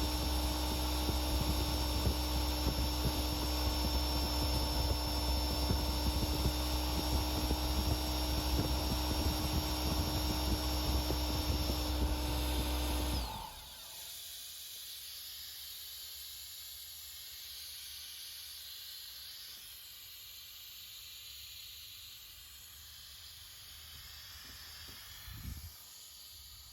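Husky electric air compressor running with a steady hum and a high whine, then switched off about halfway through and winding down quickly. A steady hiss of air escaping from the compressor follows, with a small thump near the end. It is running without building pressure, which the owner takes for a leak.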